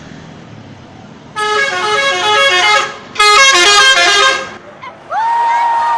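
Bus 'telolet' musical horn playing two quick melodic phrases of changing notes, each about a second and a half long. A single horn note that slides up and then holds starts about five seconds in, over steady road noise.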